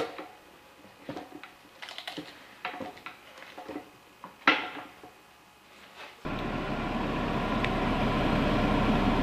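Light metallic clicks and knocks of the NV4500 transmission's main shaft gears and shaft touching the case as the assembly is worked into it by hand, with a sharper knock about four and a half seconds in. About six seconds in, the sound switches abruptly to a steady background hiss.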